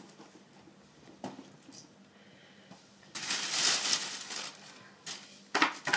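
A plastic carrier bag rustling and crinkling as hands rummage in it, starting about halfway in, after a few light knocks.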